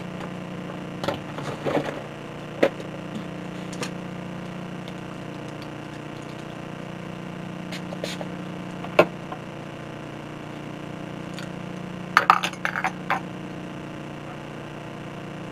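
Scattered small clicks and taps of makeup containers and brushes being picked up and handled, with a short cluster of them about twelve seconds in, over a steady low hum.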